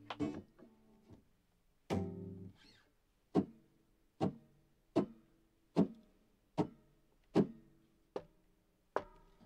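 Two short plucked chords, then eight sharp clicks evenly spaced a little under a second apart, a count-in just before the song starts.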